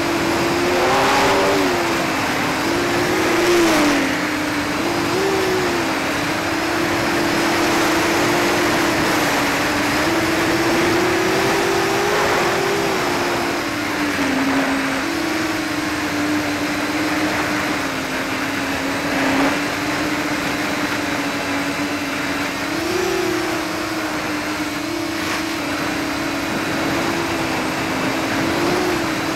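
Hubsan H501SS quadcopter's brushless motors and propellers whining in flight on a 3S 11.1 V battery, heard from the onboard camera. The pitch rises and dips every second or two with the throttle, over a steady rush of air noise.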